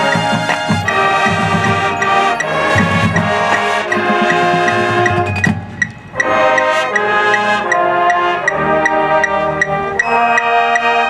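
Marching band playing: sustained brass chords over evenly spaced percussion taps, with a brief break in the sound about six seconds in.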